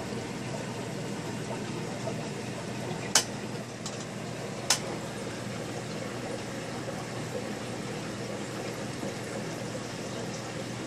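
Aquarium water bubbling steadily from the tank's air-driven filter. Two sharp clicks stand out, about three and four and a half seconds in.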